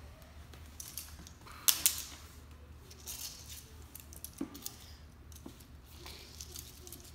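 Small plastic toy trains and a plastic case being handled: scattered clicks and clacks, the two loudest sharp ones close together about two seconds in, over a faint low hum.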